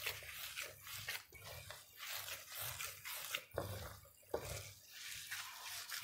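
Gloved hands kneading moist fine-bulgur köfte dough in a stainless steel tray: faint, irregular squelching and scraping strokes of the dough pressed and rubbed against the metal, about two or three a second.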